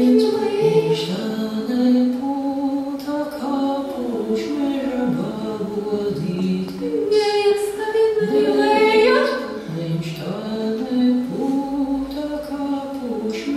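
Unaccompanied singing by several voices together, long held notes that step up and down in pitch.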